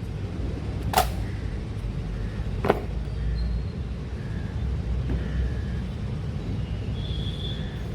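Outdoor parade-ground ambience: a steady low wind rumble on the microphone, with two sharp knocks about one second and nearly three seconds in.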